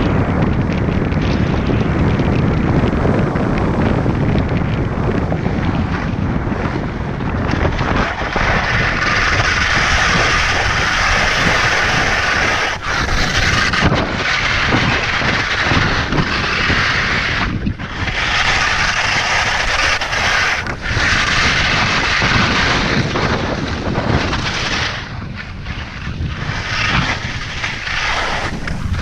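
Wind buffeting a helmet-mounted action camera's microphone as a skier runs down a steep piste. From about a third of the way in, the skis scrape loudly on hard-packed snow, with short breaks every few seconds between turns.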